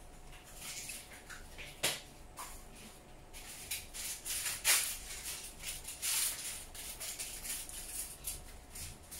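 Male Gouldian finch's quiet courtship song: a run of high, dry hissing buzzes and clicks, busiest in the second half, with a couple of sharper clicks about two seconds in and near the middle.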